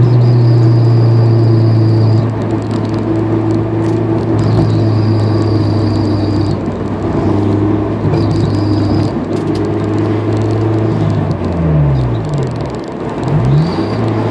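Honda S2000's four-cylinder engine running steadily, with a high whine coming and going four times. Near the end the revs drop and rise twice.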